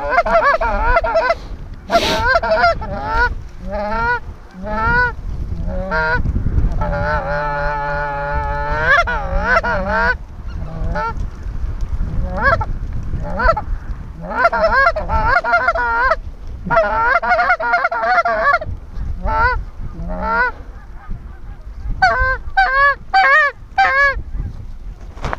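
Snow goose calling: high, yelping honks repeated quickly in runs of many overlapping calls, with short lulls between the runs, over a low rumble.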